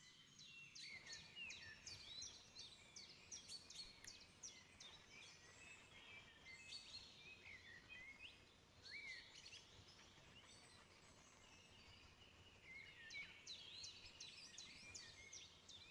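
Faint birdsong: several small birds chirping and twittering in quick high notes, thinning out around ten seconds in and picking up again near the end.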